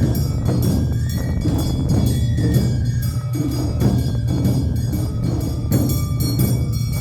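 Live Awa Odori festival music: drums and a clanging metal hand gong keep a steady, even beat, with a held melody line above them.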